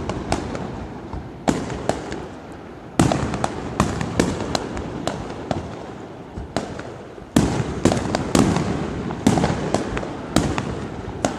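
A series of loud gunpowder bangs, about a dozen, going off at irregular intervals, each followed by a short echo.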